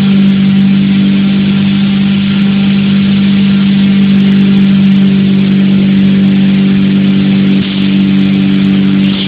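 Water-drop hammer mill grinding grain for animal feed, running steadily: a loud constant hum over a dense grinding hiss, with brief dips near the end.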